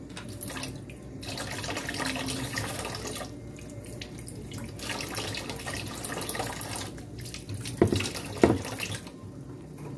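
Water running from a kitchen tap in two spells of a couple of seconds each. Then two sharp knocks, a little over half a second apart, as a plastic food container is set down on the counter.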